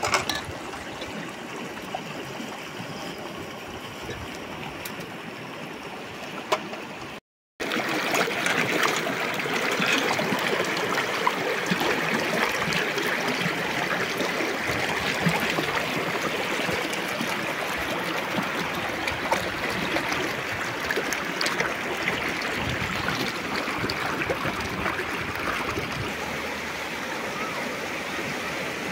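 River water flowing and babbling steadily. The sound cuts out for a moment about seven seconds in and comes back louder.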